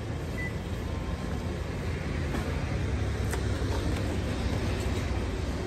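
Steady low rumble of road traffic, with a few faint clicks partway through.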